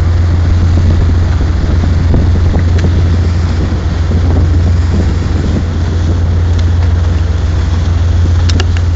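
Tugboat's diesel engine running with a steady low drone while it tows a container ship on a taut line, with wind and churned water noise over it. A few short clicks near the end.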